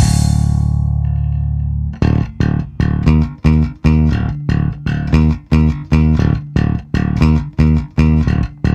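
Electric bass guitar built in the shape of a machine gun, played with the fingers. A crash at the start and one long held low note ringing for about two seconds, then from about two seconds in a riff of short, clipped notes, about three a second.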